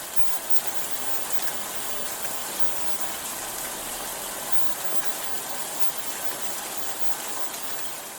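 Steady heavy rain falling, an even hiss of countless drops with no distinct individual patters.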